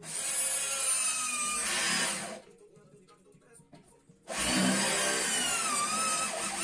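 Electric drill running in two bursts of about two seconds each, with a short pause between. In the second burst its whine sags in pitch and recovers, as it does when the bit bites under load.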